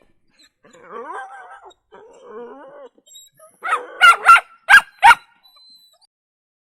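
Puppy whining faintly with wavering, gliding cries, then giving four loud, sharp yipping barks in quick succession.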